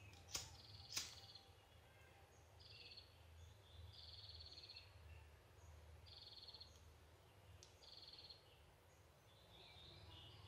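Two sharp clicks about half a second and a second in, a pocket lighter being struck, then faint, short, buzzy bird calls repeating every second or two against quiet background.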